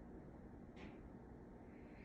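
Near silence: room tone, with one faint short hiss just under a second in.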